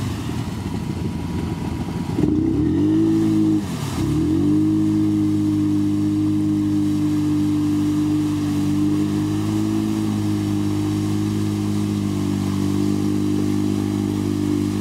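Quad bike (ATV) engine bogged down in deep mud, revved up hard about two seconds in, dropping sharply near four seconds, then held at high revs while the wheels spin and throw mud.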